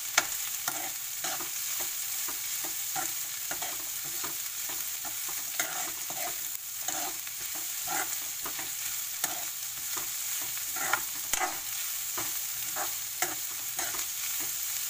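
Shredded cabbage, capsicum and onion sizzling in hot oil as they stir-fry in a kadhai on high flame, with a steel spatula scraping and tapping against the pan in repeated strokes. A sharp clink of the spatula comes just after the start.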